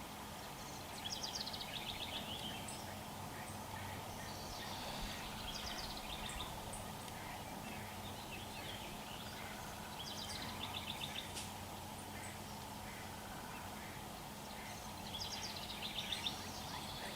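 A bird calling in rapid, high, trilled series of notes that fall in pitch, four bouts several seconds apart, over a steady background hum.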